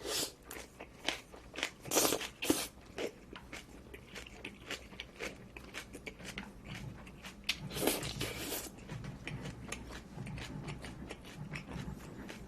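Close-miked biting and chewing of a crunchy mouthful of barbecued meat with crisp pickled radish and white kimchi. Loud crisp crunches come in the first three seconds and again around eight seconds, then steadier wet chewing.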